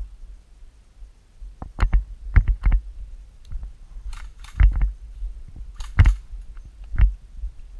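Airsoft guns firing single shots and short clusters of two or three: sharp, irregular cracks a second or two apart. Two brief hissy brushing noises of movement come around the middle.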